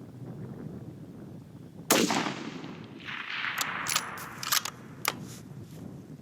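A single shot from a 6mm Creedmoor bolt-action rifle fitted with a muzzle brake, about two seconds in, followed by rustling and several sharp metallic clicks as the bolt is cycled.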